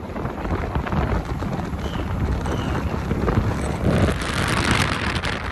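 Wind buffeting the microphone of a moving motorbike, over steady road and engine noise. About four seconds in, a large bus passing close alongside in the other direction brings a brief swell of noise.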